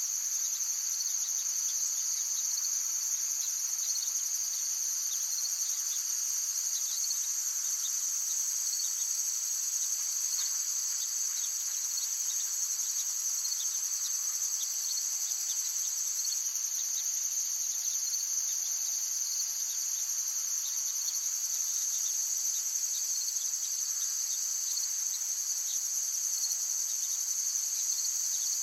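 A dense chorus of insects singing in a forest: a steady, high-pitched, unbroken shrill with no pauses.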